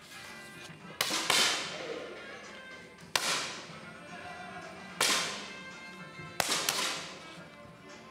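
Match air pistols firing in a hall: about six sharp cracks, some in quick pairs, each ringing away in the room's echo over a faint steady background.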